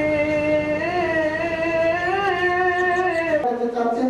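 Music with a singing voice holding one long, slightly wavering note, which steps down to a lower note about three and a half seconds in.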